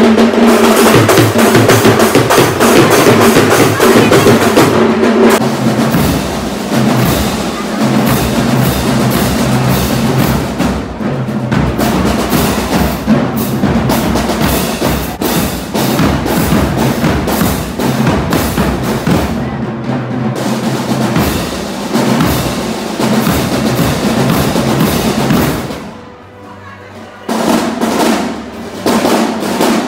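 Marching band drumline playing a fast cadence on bass drums and snare drums, with rolls. The drumming breaks off for about a second near the end, then starts again.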